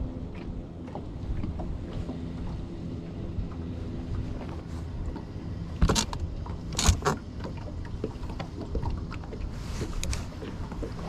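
Wind rumbling on the microphone aboard a small boat, with a few sharp knocks about six, seven and ten seconds in.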